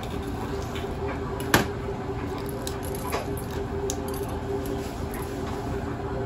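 A kitchen knife knocks once sharply on a plastic cutting board about a second and a half in, and a weaker knock follows near three seconds. Between them come soft handling sounds as manganji peppers are split and their seeds pulled out, all over a steady background hum.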